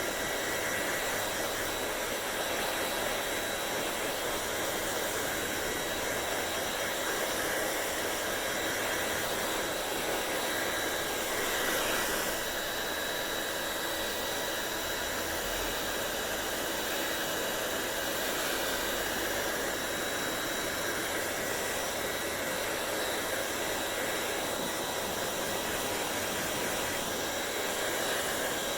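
Hair dryer running steadily: a continuous rush of blown air with a thin, steady motor whine on top, briefly a little louder about twelve seconds in.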